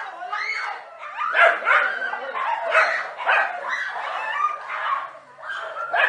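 Dogs barking repeatedly while attacking a snake, in a run of short barks close together.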